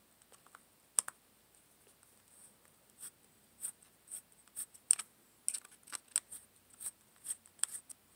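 Small hobby parts being handled: irregular sharp clicks and light taps. A pair comes about a second in, then a quicker scattered run through the second half.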